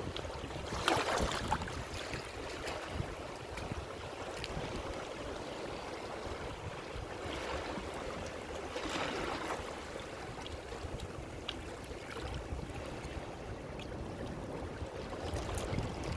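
Ocean waves washing in, a steady rush of surf that swells with a breaking wave about a second in and again about nine seconds in.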